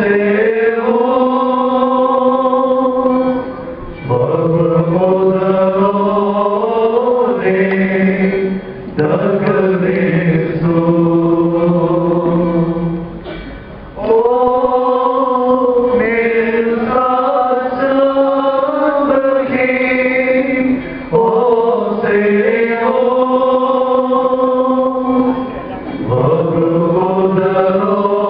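Voices chanting a slow Syriac Orthodox liturgical hymn: long held notes in phrases of four to five seconds, each followed by a brief pause for breath.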